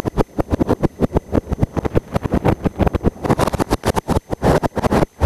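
Log flume boat ride picked up close on a cheap camera microphone: a rapid, irregular crackling and rumbling noise that rises and falls many times a second.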